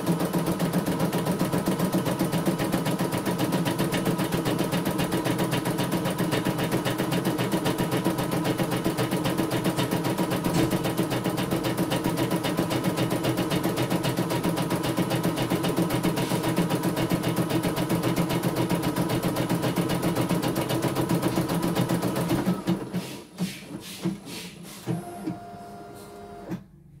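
CNY E900 computerized embroidery machine stitching a design, its needle running in a rapid, even rhythm. About 22 seconds in the stitching stops, followed by a few clicks and a short tone.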